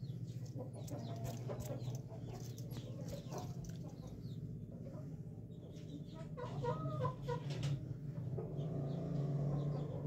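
Aseel rooster calling, clucking at first, then crowing from about six and a half seconds in, louder toward the end. A steady low hum runs underneath.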